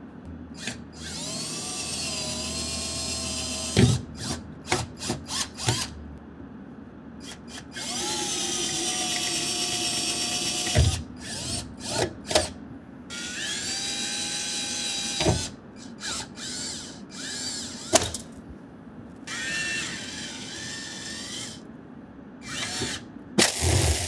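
Cordless drill with a 3/16 bit drilling out the rivets that hold a tonneau cover to its spring reel. It runs in four spells of a few seconds each, its whine rising as it spins up. Sharp clicks and knocks come between the spells.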